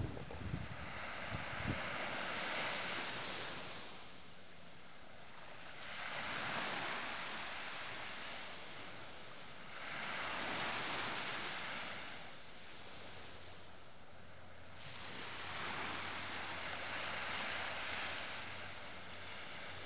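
Sea waves washing ashore, the rush of water swelling and fading in slow surges about every four seconds.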